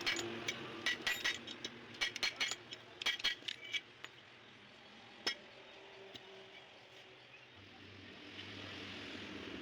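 Small metal parts clinking and rattling against each other in quick, ringing clusters for the first few seconds, then a single sharp click. Near the end a low hum and hiss build up.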